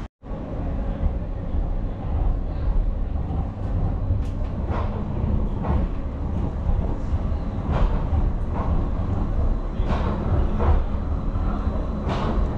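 A Bybanen light-rail tram (Stadler Variobahn) passing close by on the next track, a steady low rumble with a string of irregular knocks and clacks from its wheels on the rails and switches, heard from inside a standing tram.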